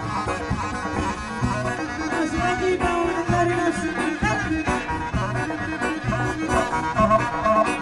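Live Greek folk band music: an ornamented melody with clarinet over a steady beat.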